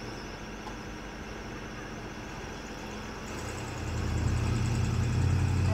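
Ice cream truck's engine running steadily, growing louder and deeper about three and a half seconds in.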